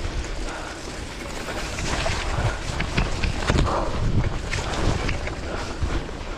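Wind buffeting the action camera's microphone while riding, in uneven gusts, over the knobby gravel tyres rolling on wet mud and puddles, with occasional clicks and rattles from the bike.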